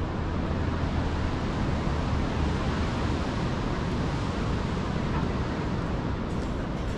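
Steady wind rumbling on the microphone over the constant rush of ocean surf breaking on rocks.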